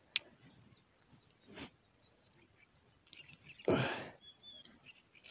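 Quiet handling sounds from an angler's hands working on fishing tackle: a light click just after the start, soft rustling, and a louder rustle about four seconds in. Faint bird chirps are heard now and then.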